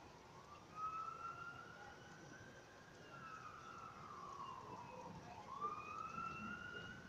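Faint wailing siren, its pitch sweeping slowly up and down, falling and rising again about once every five seconds.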